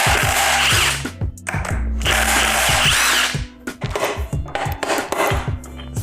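Power tool running in two bursts of about a second and a half each, undoing fasteners during an engine teardown, followed by lighter scraping and clicks of tools. Background music with a steady beat plays underneath.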